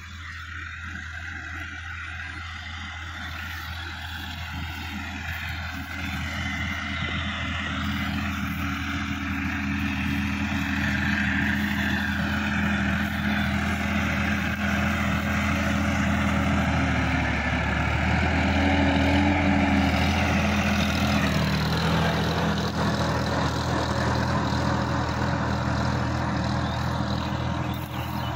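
Sonalika DI-50 RX tractor's diesel engine working under load while pulling a rotary tiller through the soil. It grows steadily louder as the tractor approaches and passes, loudest about two-thirds of the way in, then eases slightly as it moves away.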